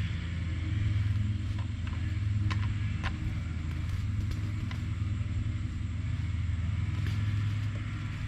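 Steady low motor hum with a few sharp clicks; the hum cuts off at the very end.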